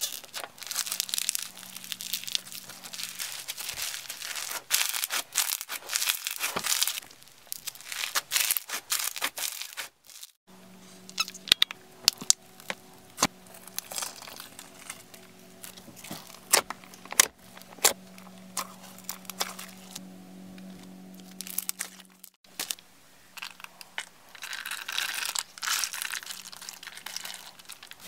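Hands squishing and poking slime: the crackle and crunch of foam-bead slime, and sharp wet pops and clicks from a sticky glossy slime mixed with jelly cubes in the middle stretch. A steady low hum runs under that middle part.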